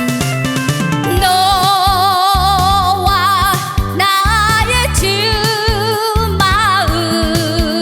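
Trot song with a band backing. From about a second in, a female voice sings the melody with a strong, wavering vibrato.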